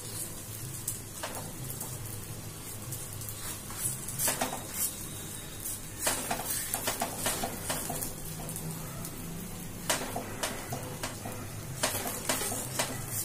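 Fingers patting soft wheat-flour and drumstick-leaf adai dough out thin on a dosa tawa: irregular soft pats and dabs, with now and then a sharper tap against the pan, over a low steady hum.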